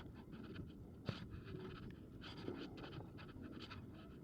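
Faint, irregular rustling and scuffing of someone walking and pulling a gear wagon, over a low steady rumble.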